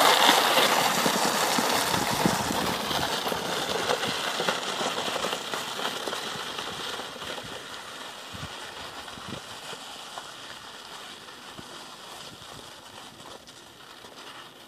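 Two plastic sleds scraping over crusty snow, a steady rushing scrape that fades away evenly as they slide off downhill.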